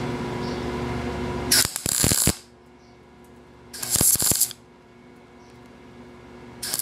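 MIG welder striking three short tack welds along a butt joint in 18-gauge sheet metal. Each weld is a burst of arc noise about half a second long, a couple of seconds apart, with the last near the end.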